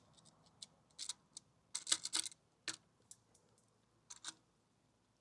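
Light, scattered clicks and ticks of small metal hardware being handled: bolts, sleeves and screws being fitted to a motorcycle fender adapter plate, with a cluster of clicks about two seconds in and a couple more near the end.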